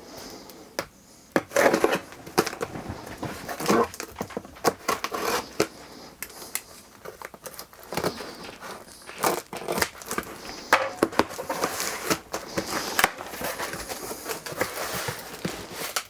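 A cardboard care-package box being opened by hand: irregular crinkling, tearing and rustling of packing tape, cardboard and wrapping, with many sharp clicks and knocks.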